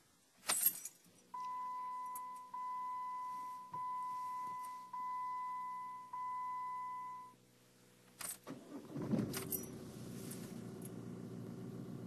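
Keys jingle and a dashboard warning chime dings five times, about a second apart. After a few clicks, the Dodge Nitro's engine starts about nine seconds in and settles into a steady idle through its stainless steel aftermarket exhaust, heard inside the cabin with the windows up.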